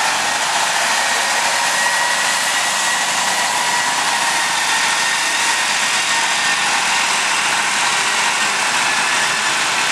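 Vintage Ahlmann wheel loader's engine running steadily as the loader drives along, with a steady high whine over the engine noise.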